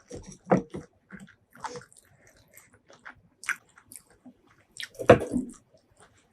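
Close-miked eating: irregular wet chewing and biting clicks, with two louder bites about half a second in and about five seconds in.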